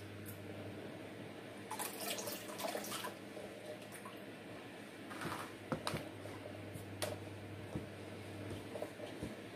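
Water splashing and dripping as orchids in clear plastic pots of bark substrate are dipped into a basin of water and lifted out to drain, the bark being wetted through. Two bouts of splashing, about two seconds in and again around five to six seconds, with a few light knocks of the plastic pots.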